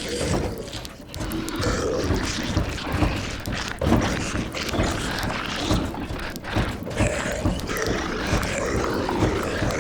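Zombie moans and growls, several overlapping and irregular, over steady rain on a roof, with a sharp knock about four seconds in.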